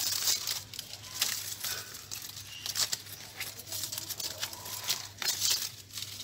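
Dry, dead lower leaves of a dracaena being pulled and torn off the stem by hand: irregular crackling and rustling of dry leaf.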